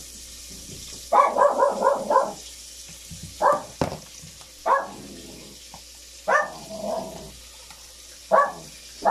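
Dog barking: a quick run of about five barks, then single barks every second or two.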